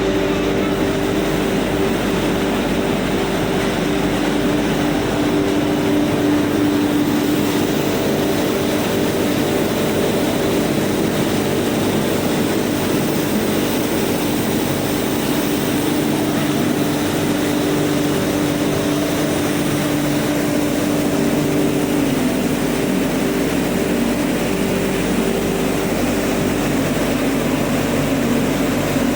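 Rice milling machine running steadily: a loud, even machine noise with a steady hum, which dips slightly in pitch about two-thirds of the way through.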